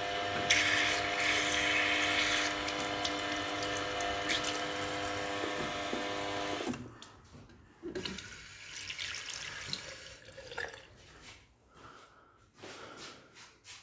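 Water running from a lever tap into a ceramic washbasin, with a steady multi-tone hum under the hiss; the flow is louder for a couple of seconds near the start. The water cuts off about seven seconds in, leaving faint clicks and handling knocks.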